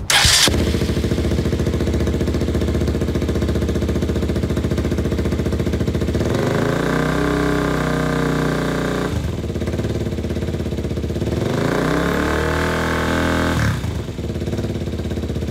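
KTM motorcycle engine running through a long Akrapovic slip-on exhaust with its dB killer fitted, idling steadily and revved twice, each rev rising in pitch and dropping back to idle.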